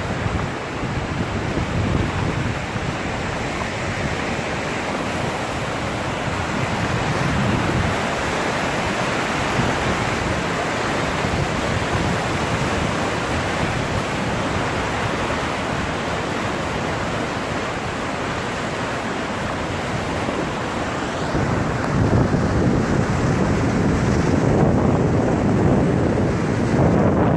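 Steady rushing noise of flash-flood water, with wind buffeting the microphone; it grows louder about 22 seconds in.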